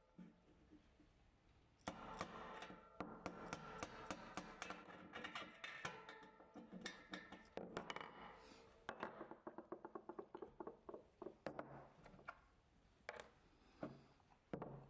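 Light metal clicks and clinks from bike hub parts and tools being handled on the workbench, including a quick run of evenly spaced clicks in the middle that fades away.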